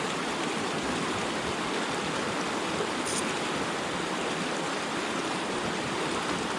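Fast-flowing mountain river rushing steadily; the Stillwater Fork of the Bear River running high, about twice its normal flow.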